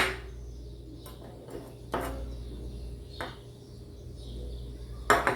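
Small hard clicks of a graphics card's parts being handled as a connector is unplugged: three separate clicks, the loudest near the end, over a steady low hum.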